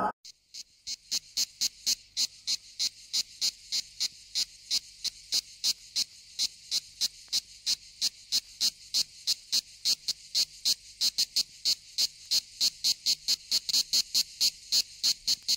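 Cricket chirping in a steady, even rhythm of short high chirps, about three a second at first and quickening to about four a second.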